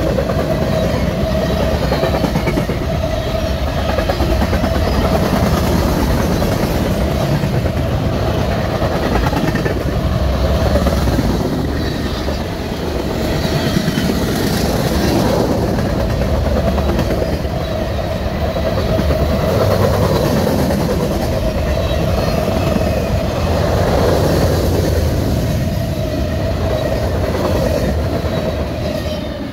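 Norfolk Southern mixed freight train's cars rolling past close by: a loud, steady noise of steel wheels on rail with a clickety-clack over the rail joints. A steady ringing tone runs through it.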